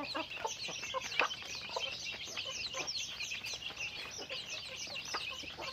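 A flock of chickens: short clucks come and go over a dense, continuous chorus of high-pitched peeps.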